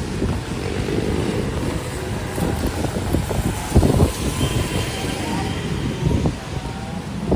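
Typhoon wind gusting on the microphone, mixed with traffic noise from vehicles passing on a city street. The low rumble surges loudest about four seconds in.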